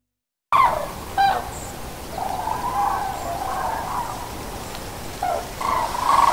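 A flock of common cranes calling in flight: many overlapping trumpeting calls over steady background noise, starting abruptly about half a second in.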